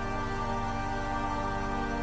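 Background music: calm, held chords with a steady level.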